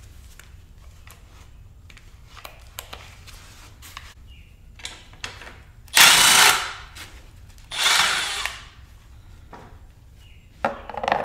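Cordless impact driver with a 15 mm socket, in two bursts of just under a second each, loosening a bicycle's front axle nut. Lighter handling clicks and a short clatter come near the end.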